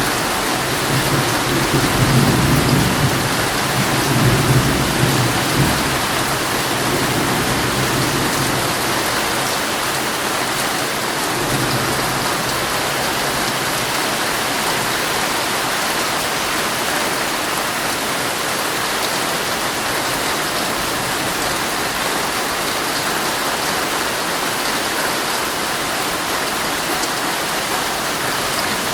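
Heavy rain drumming steadily on a tent. A low roll of thunder rumbles under it and dies away within the first several seconds.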